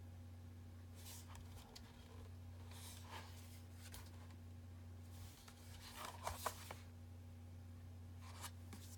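Pages of a children's cutout board book being handled and turned: a few soft paper swishes and light taps, the busiest about six seconds in, over a steady low hum.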